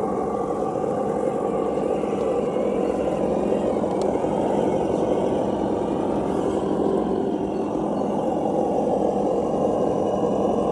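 Simulated truck engine sound from an RC crawler's Reely sound module, played through its small onboard speaker. It runs steadily with slight changes in pitch as the truck drives.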